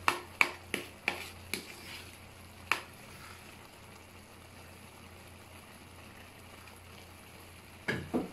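Metal ladle knocking and scraping against a large aluminium pot while pulao rice is stirred: a quick run of about half a dozen knocks in the first three seconds, then a faint steady sizzle of the rice cooking over the flame. Two more knocks come near the end.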